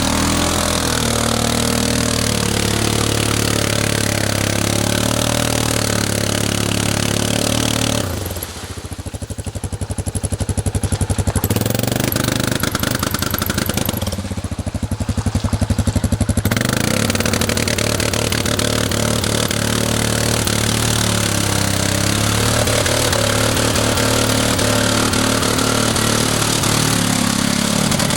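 ATV engine running steadily. Twice near the middle it drops for a few seconds to a lower, slower chugging before picking up again.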